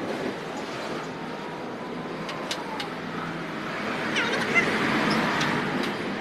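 Steady background noise like distant road traffic, with a few small clicks and short high chirps.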